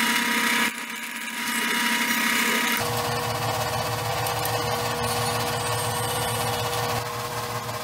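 Drill press running, its bit drilling through a steel flat bar: a steady motor hum under a grinding cutting sound. The sound changes abruptly about a second in and again near three seconds.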